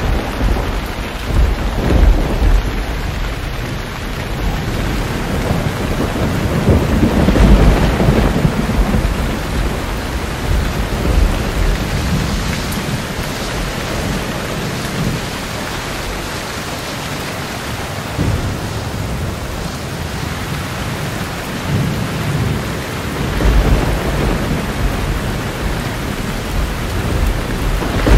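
Thunder rumbling over steady rain; the low rumble swells and fades several times, strongest near the start, about seven seconds in, and again a little past twenty seconds.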